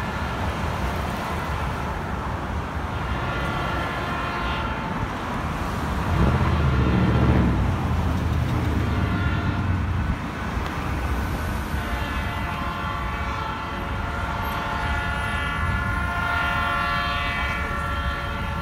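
Diesel locomotive's multi-chime air horn sounding in several blasts as a train approaches, the last one long and unbroken from about twelve seconds on, over steady street traffic. A road vehicle passes close by about six seconds in and is briefly the loudest sound.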